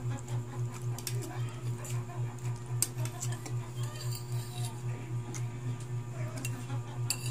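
Spoon and fork clinking and scraping against a plate of noodles in a few sharp clicks, mostly in the middle and near the end, over a steady low hum that pulses about five times a second.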